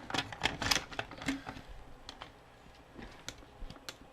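Hard plastic action-figure parts clicking and rattling as they are handled and pressed together. There is a quick run of sharp clicks in the first second and a half, then scattered single clicks.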